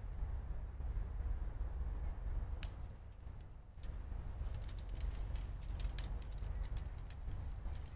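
Wind rumbling on the microphone, with scattered light ticks and clicks that come thicker in the second half.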